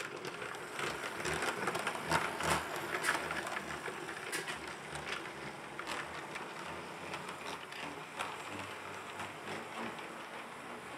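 Electric model train running on the layout track: cars rolling and rattling, with irregular sharp clicks from the wheels over the rail joints and a faint running hum.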